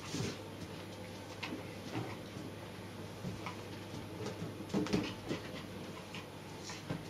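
Small dog nosing and pushing an inflated rubber balloon, with scattered soft bumps and light clicks and a little panting; the loudest bumps come about five seconds in.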